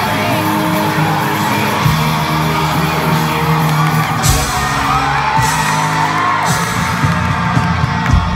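Live pop band playing a song's intro with held bass notes while a crowd of fans screams and whoops. Drum hits come in near the end.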